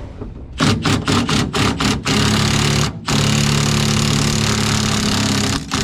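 Impact wrench running on a rear lower control arm bolt, spinning it out after it has been broken loose. A few short trigger bursts come first, then a run of about a second and, after a brief break, a longer run of two and a half seconds.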